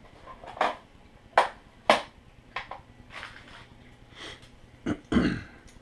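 Hard plastic-and-composite clacks of Dart 400 quadcopter frame plates and arms being handled and set down on a tile floor, a string of separate sharp knocks with the two loudest about a second and a half and two seconds in. A duller, heavier thump near the end.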